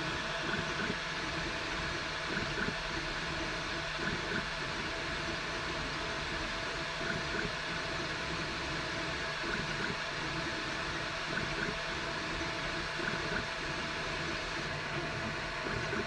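3D printer running: cooling fans hissing steadily while the stepper motors whirr in short, shifting tones as the print head moves.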